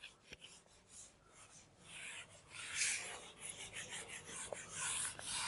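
A whiteboard eraser wiping marker writing off a whiteboard in repeated rubbing strokes. It is faint for the first two seconds, then grows louder.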